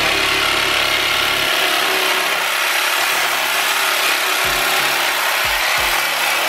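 Reciprocating saw running steadily as its blade cuts into the wall along a wooden window frame.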